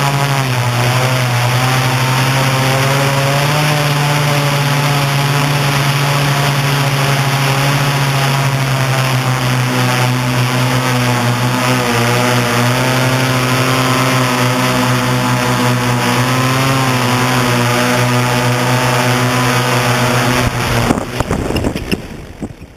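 Octocopter's electric motors and propellers droning steadily, heard from on board, the pitch drifting slightly as the throttle changes. Near the end the drone sets down with a few knocks and the motors spin down and stop.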